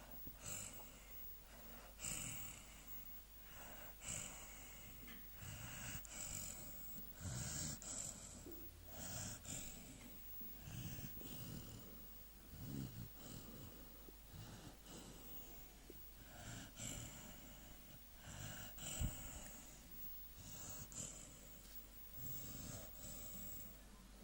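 Three-month-old American Staffordshire Terrier puppy snoring in its sleep, faint, a rasping breath about once a second. One sharp click about two-thirds of the way through.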